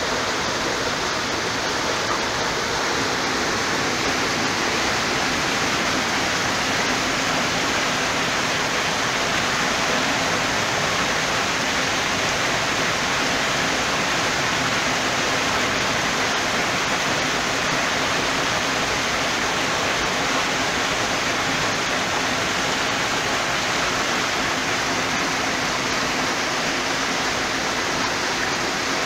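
Water pouring over the end gate of a dry dock and churning along a narrowboat's hull as the dock floods: a steady rush of falling water.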